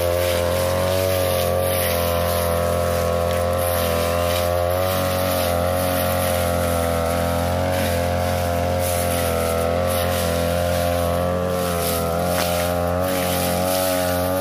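42cc backpack brush cutter engine running steadily at high revs, its pitch wavering slightly as the metal blade cuts through thick grass and weeds.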